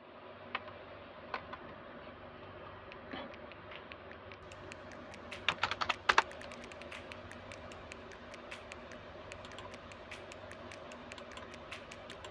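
Computer keyboard typing: scattered key clicks, with a quick cluster of louder keystrokes about halfway through, then a run of light, rapid clicks.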